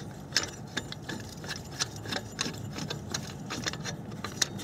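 Light, irregular metallic clicks, a few a second, as the bolts holding a drive-belt auto tensioner are backed out.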